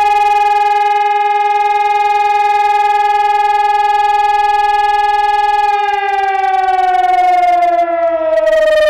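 Electronic high-performance civil-defence siren sounding the fire alarm signal (Feueralarm). Its loud, steady tone holds for about six seconds, then begins to fall in pitch.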